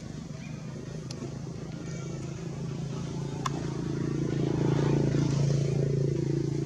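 A motor vehicle engine hum that grows louder, peaking about five seconds in, then eases off slightly as it goes by. A single sharp click comes about three and a half seconds in.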